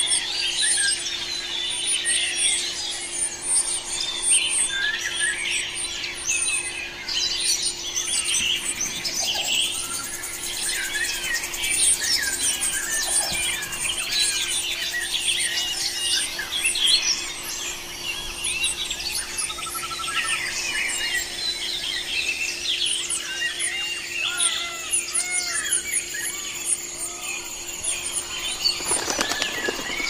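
Many birds chirping and calling at once, a dense chorus of short chirps and quick sweeping notes, over a steady low hum.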